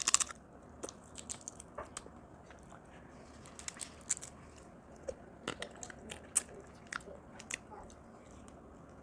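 A person biting and chewing crab from a seafood boil: irregular sharp crunches and clicks, with a louder crack right at the start and another about six and a half seconds in.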